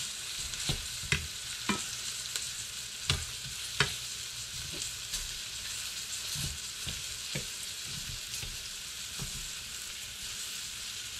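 Breaded northern pike pieces sizzling steadily as they fry in hot butter in a skillet, with a fork clicking and scraping against the pan as the pieces are flipped; the taps come thickest in the first four seconds, then thin out.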